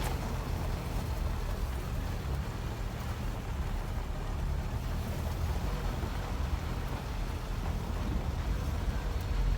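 An engine running steadily, with a low hum, under a rush of wind noise.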